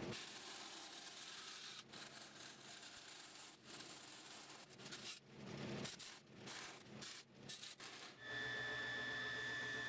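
Vertical band saw cutting aluminum sheet: a rasping cutting noise that breaks off and picks up again several times as the sheet is fed. From about eight seconds in, the cut is through and the saw runs free with a steady high whine.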